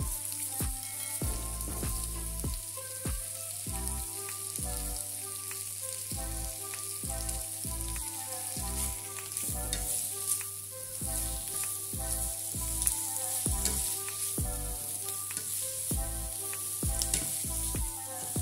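Diced zucchini, bell pepper and onion sizzling in a frying pan while a spatula stirs them, with scattered scrapes and taps against the pan. Background music with a steady bass beat plays over it.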